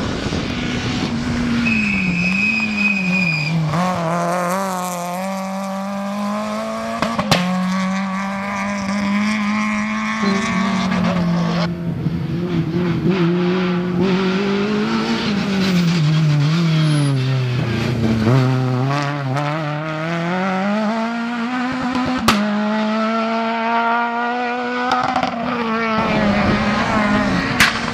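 Rally cars driven hard along a stage, engines revving up and dropping repeatedly through gear changes and braking, with a few sharp cracks.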